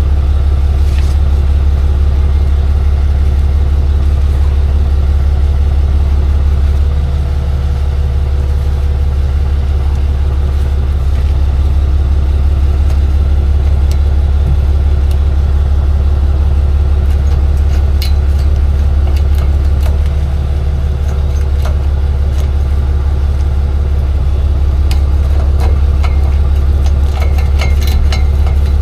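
Tow truck's engine running with a steady low drone that shifts slightly twice. A few light clicks and rattles come near the end.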